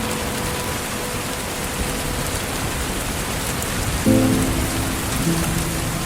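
Steady rain falling, an even hiss, under a lofi music track whose soft chords drop out near the start and come back about four seconds in.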